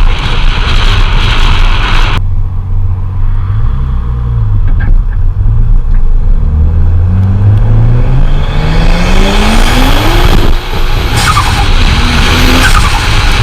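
Turbocharged car engine accelerating hard, its pitch climbing steadily for several seconds, with a sudden change in the sound about two seconds in and a brief break about ten and a half seconds in, where another climb begins.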